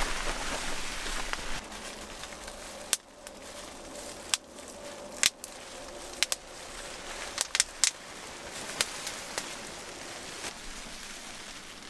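Plastic bubble-wrap sheeting crackling in scattered sharp snaps as it is handled, over a steady hiss.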